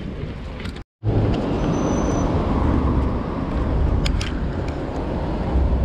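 Wind noise on the microphone and tyre noise from a road bike being ridden, a steady rushing heavy in the low end. The sound cuts out completely for a moment about a second in, then comes back louder.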